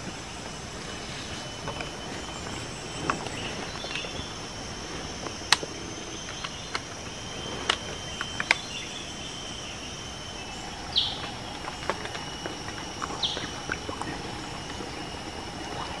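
Forest ambience dominated by a steady, high-pitched insect drone, with scattered sharp ticks and snaps and two short high chirps in the second half.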